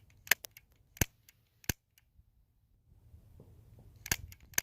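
BB gun firing a series of sharp pops at clay targets, about five shots: three in the first two seconds, a pause, then two more close together near the end.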